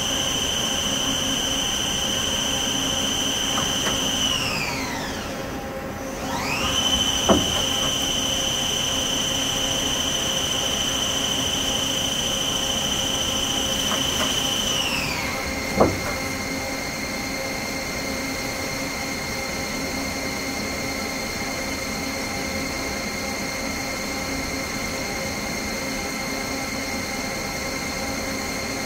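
Hardinge Conquest T-42 CNC turning center running, its spindle drive giving a steady high-pitched whine that glides down almost to a stop about five seconds in, climbs straight back to the same pitch, then slides down to a lower steady pitch about fifteen seconds in. Two sharp knocks come about seven and sixteen seconds in, over a steady low machine hum.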